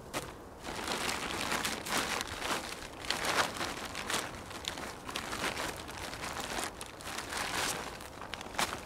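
Woven plastic tarp being bunched and gathered up by hand, crinkling and rustling in a steady run of quick crackles.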